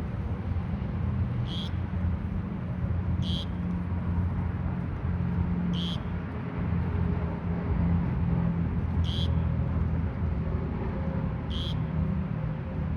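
Loggerhead shrike fledgling giving five short, raspy, high-pitched begging calls a couple of seconds apart, the hungry young bird calling to be fed. A steady low rumble of road traffic runs underneath.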